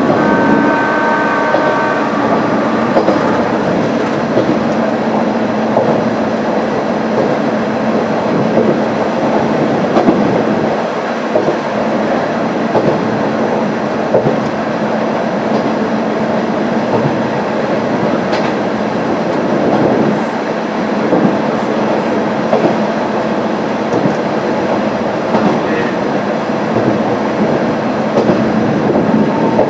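Onboard running noise of a Kanto Railway KiHa 350 diesel railcar under way: a steady diesel engine drone and wheel rumble on the rails, with scattered wheel clacks.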